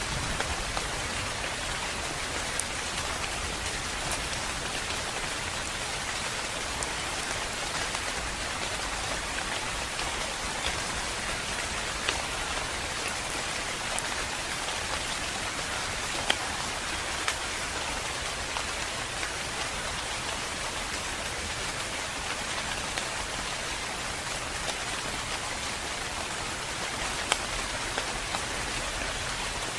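Steady, calm rain falling, an even hiss with occasional louder individual drops ticking on a surface.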